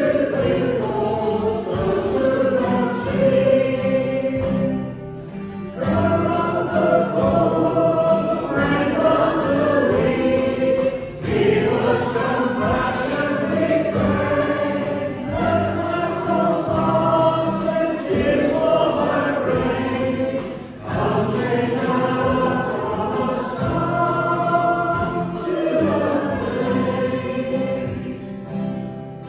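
Congregation singing a hymn together with a band accompaniment, the voices moving in sung phrases with brief breaks between lines.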